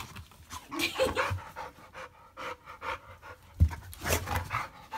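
Dog panting and snuffling with scattered plastic clicks and rustles as it mouths a small desk fan, and one loud thump about three and a half seconds in.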